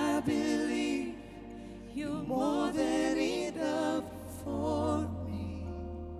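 A male worship leader sings slow, held phrases with vibrato over sustained band chords and a low bass note. The voice drops out about five seconds in, leaving the held chords.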